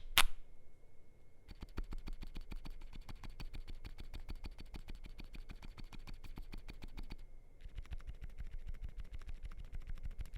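Fast typing on a MonsGeek M1W mechanical keyboard with lubed WUQUE Silent Tactile switches on a polycarbonate plate: a soft, muted clatter of many quick key presses, with one louder hit at the very start and a brief pause a little past the middle.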